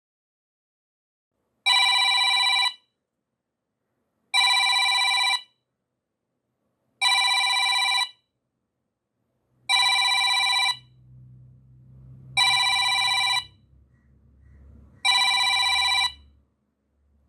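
Alarm of a digital countdown timer going off at zero: a bright electronic ring repeats six times, each ring about a second long and about two and a half seconds apart, starting about a second and a half in.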